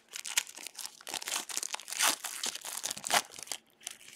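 Foil wrapper of a baseball card pack crinkling and tearing as it is ripped open and handled, a dense irregular crackle that thins out near the end.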